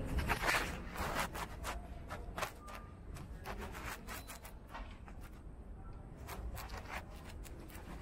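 Soft rubbing and rustling with scattered light ticks at an uneven pace, close to the microphone, over a low, steady indoor room tone. It is loudest in the first second.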